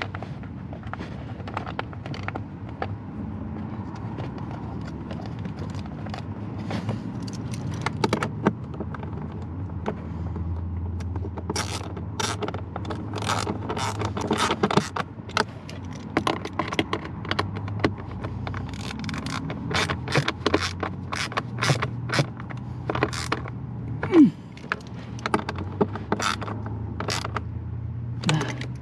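Clicks, knocks and scrapes of hand work fitting a replacement blower motor in a 2003 Dodge Ram, over a steady low hum, with one louder knock about 24 seconds in.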